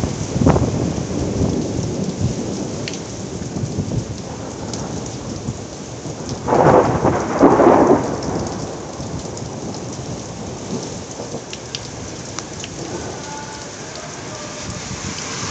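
Heavy rain pouring steadily onto a street in a thunderstorm, with thunder rumbling. A louder double surge comes about halfway through.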